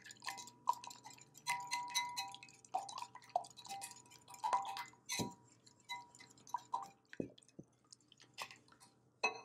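Wire whisk beating eggs in a glass bowl: quick, irregular clinks of the wires against the glass, each leaving a short ringing tone, thinning out in the last couple of seconds.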